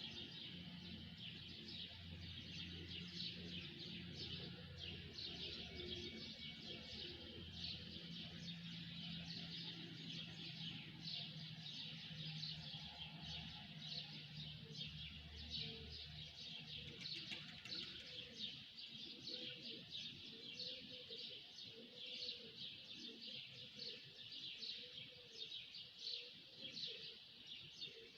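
Many birds chirping and twittering at once in a dense, continuous chorus. From about halfway, a lower call repeats roughly once a second underneath the chirping.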